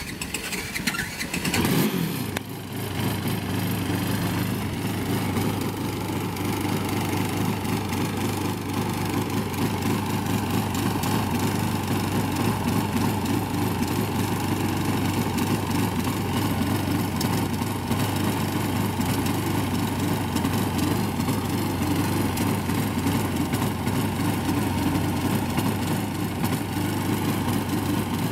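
A student-built formula race car's engine catching about a second in with a brief rise and fall in pitch, then running at a steady speed for its noise inspection.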